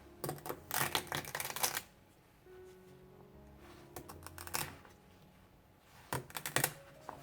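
Leaves being picked and snapped off celery stalks: three bursts of quick, crisp snapping and tearing, about a second in, around four seconds in and near the end. Soft background music plays underneath.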